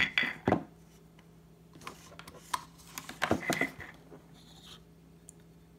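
Handling clicks and knocks as a handheld digital multimeter and its test leads are picked up and set down on a wooden tabletop. There is a sharp click at the very start, another about half a second in, and a short cluster of taps around three and a half seconds in.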